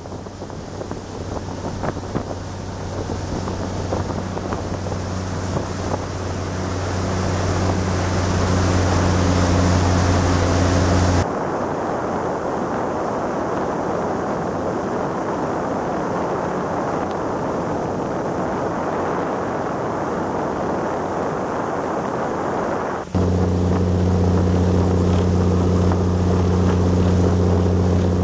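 Volvo Penta D9-575 inboard diesel driving a boat at speed: a steady deep drone over the rush of the wake, growing louder over the first several seconds. About eleven seconds in, the drone drops out abruptly and only wind and rushing water remain, until the engine drone cuts back in near the end.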